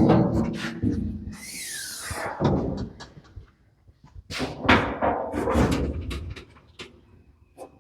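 Metal knocks and clanks from handling around the round baler's chains, with a hiss of about a second from spraying a diesel and engine-oil mix onto the chains about a second and a half in.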